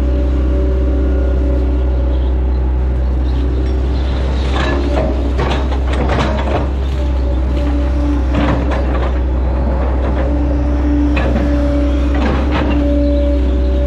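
Hitachi Zaxis 110 excavator's diesel engine running steadily under hydraulic load, heard from the cab, with a constant low hum and level tones. From about four and a half seconds in until near the end come several bouts of knocking and clatter as the bucket digs and presses wet mud.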